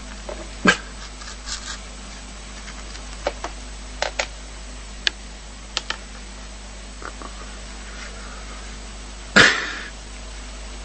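A dog, heard as a scattering of short sharp clicks and taps, then one loud short sound about nine and a half seconds in that dies away quickly.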